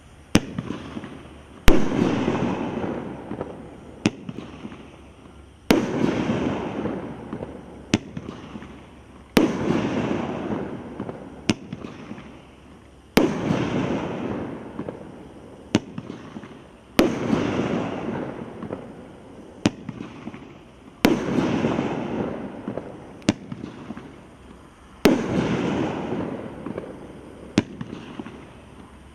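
A 500 g consumer fireworks cake firing shot after shot, about one every four seconds. Each shot is a sharp launch thump, then a louder burst about a second and a half later, whose noisy tail fades over a couple of seconds.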